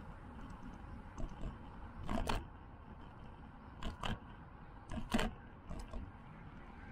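Bicycle tyres knocking over cracks in an asphalt path. Three loud pairs of knocks come about two, four and five seconds in, the two knocks of each pair a fraction of a second apart, as front and rear wheel cross the same crack. Fainter knocks fall between, over a steady rush of wind and tyre noise.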